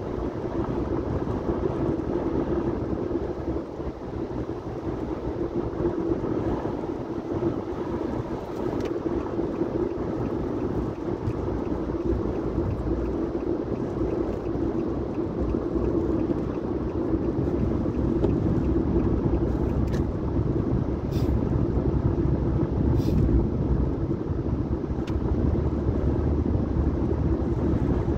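Steady road and engine noise inside a moving car's cabin, tyres running on a wet road: a low rumble with a steady hum.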